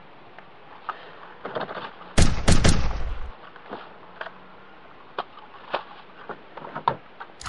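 Gunfire sound effect: a quick burst of three loud rifle shots about two seconds in, then scattered lighter clicks and knocks over a steady hiss.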